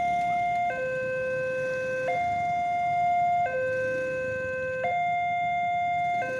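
Railroad level-crossing warning alarm: an electronic two-tone signal alternating steadily between a lower and a higher note, each held about a second and a half, warning of an approaching train.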